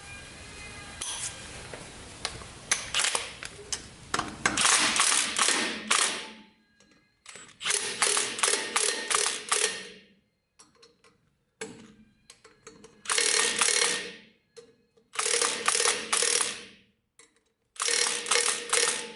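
Ratchet wrench clicking in several bursts of a second or two each, separated by short pauses, as 12 mm service bolts are tightened into a rear brake rotor to jack it off the hub.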